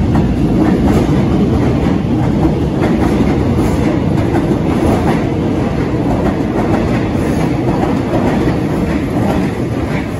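Alstom X'Trapolis electric suburban train passing close by at speed, a steady loud rumble of wheels on rails with some clatter, dropping away suddenly near the end as the last car clears.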